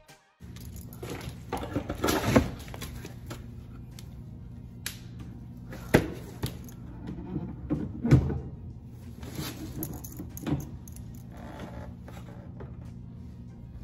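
Aftermarket rear diffuser being handled and fitted under a Honda Civic's rear bumper: hard knocks and clatter against the bumper and mounting bracket, loudest about 2, 6 and 8 seconds in, over a steady low hum.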